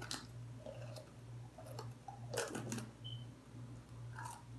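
Faint mouth noises of someone biting and chewing a piece of egg white, with a few soft clicks and a brief louder knock about two and a half seconds in, over a steady low electrical hum.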